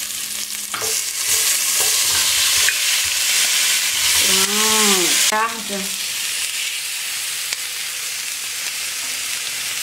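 Sliced onion and green pepper sizzling in hot olive oil with garlic in a stainless steel pot, stirred with a spoon. About five seconds in, the sizzle drops to a softer steady hiss.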